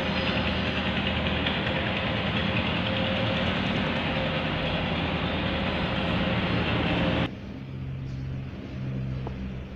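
Steady rushing noise with a low hum under it, cutting off abruptly about seven seconds in to a much quieter background hum.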